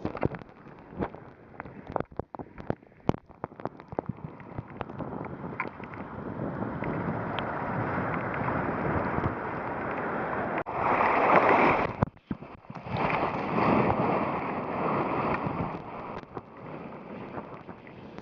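Ocean surf washing in, with wind buffeting the microphone. The rush of water swells about halfway through, peaks about two-thirds of the way in, and swells again before fading.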